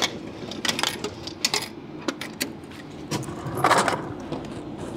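Coins clinking in a vending machine's change return as change drops and is scooped out: a series of separate sharp metallic clicks through the first half, then a brief rushing noise about three and a half seconds in.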